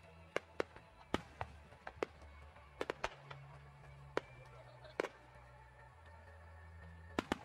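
Aerial firework shells bursting in a dozen or so sharp bangs at irregular spacing, with a quick pair near the end. Low sustained background music runs underneath.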